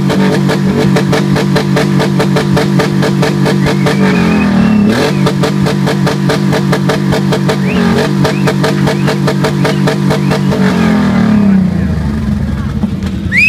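Loud motorcycle engine revved hard through its exhaust, its pitch rising and falling a few times, with rock music playing underneath.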